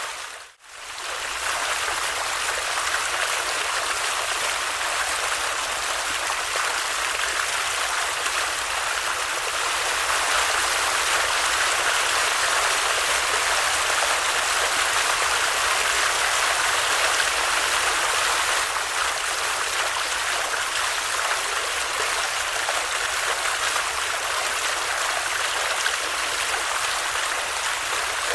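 A water stream flowing steadily, a continuous rush of running water. About half a second in the sound briefly dips almost to silence and comes straight back.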